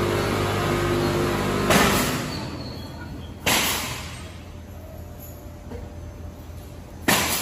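Multihead weigher packing machine running, a steady motor hum at first. About two seconds in the hum drops away, and sudden bursts of noise, each fading over about a second, come at about two, three and a half, and seven seconds.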